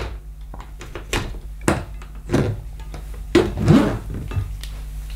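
Handling knocks and rubs as the mains cable is freed from the back of a Miele washing machine and the hoses are moved against its metal back panel: a handful of short, irregular knocks.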